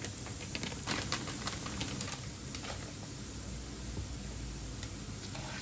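Hot mustard oil sizzling in a frying pan with browned garlic and curry leaves, full of small quick crackles and pops: a tadka being tempered.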